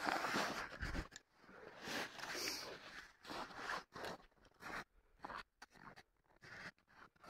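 Footsteps crunching through snow, with clothing rustling. The steps come irregularly, longer and louder in the first three seconds, then shorter and fainter.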